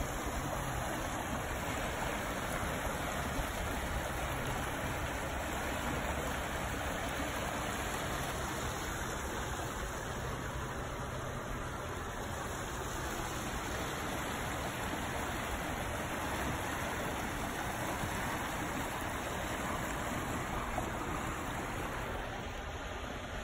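A brook running high with rain runoff, its water rushing steadily.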